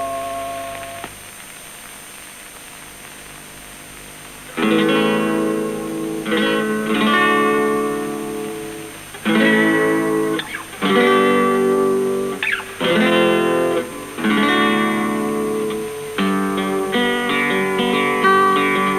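A bell-like chime rings and dies away in the first second. After about three and a half seconds of quiet, an acoustic guitar plays a series of strummed chords, each left to ring.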